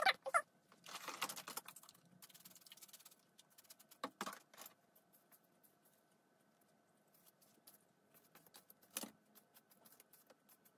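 Faint scattered light clicks and taps from hands working a lace wig, with a louder rustle about a second in and sharper ticks around four and nine seconds in, over a faint steady hum.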